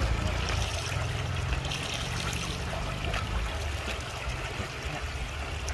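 Muddy, frothy rainwater running fast along a rocky channel: a steady rushing wash with a low rumble underneath.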